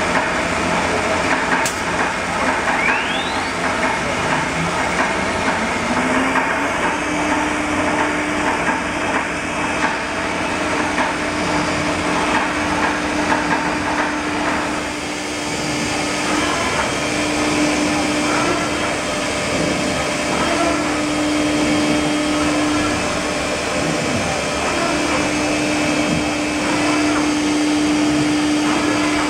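Acctek CNC wood router with a multi-spindle drilling head running under dense, steady machine noise. About five seconds in, a spindle spins up with a rising whine and then holds a steady pitch, cutting out and coming back several times.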